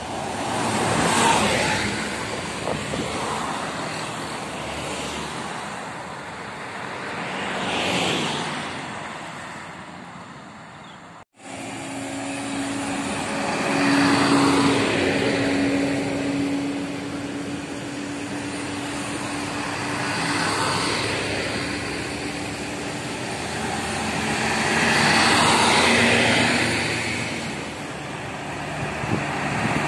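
Large tour buses in a convoy driving past one after another, the engine and tyre noise swelling and fading about five times, a few seconds apart. The sound cuts out briefly about a third of the way through, and a steady low hum runs under the passes after it.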